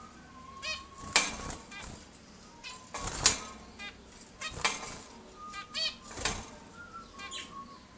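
Zebra finches calling and singing: a run of short, nasal, beeping notes several times a second, broken by sharper clicking notes.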